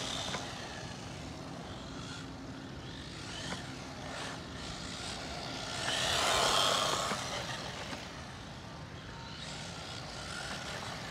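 Remo Hobby 1621 Rocket 1/16-scale RC short course truck driving on asphalt: the brushed electric motor whines over the tyre noise. It gets louder as the truck passes close about six seconds in, then fades as it drives away.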